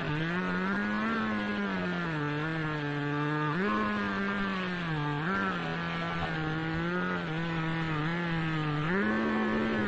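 Two-stroke chainsaw running under load as it rips lengthwise along a log in a chainsaw mill; the engine's pitch rises and sags several times.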